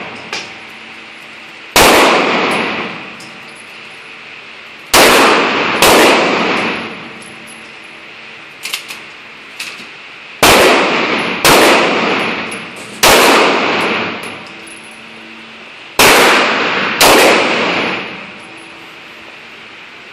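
Pistol shots on an indoor range, nine of them at uneven intervals one to five seconds apart, each loud and echoing off the range walls, with a few faint ticks in between.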